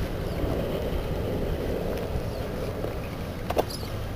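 Wind buffeting the microphone on an open bass boat, a steady rumbling noise with no engine tone, and one short click about three and a half seconds in.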